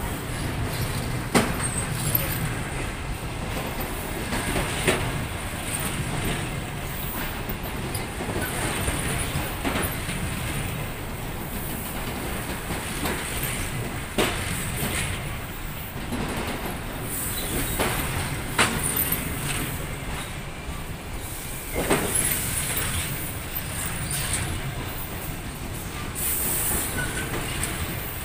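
Passenger coaches of an arriving train rolling past at low speed. The steel wheels give a sharp knock over a rail joint every few seconds, with a high wheel squeal coming and going on top of the steady rumble.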